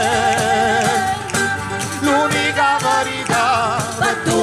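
Southern Italian folk song played live: voices singing with a wide vibrato over accordion and percussion keeping a steady beat.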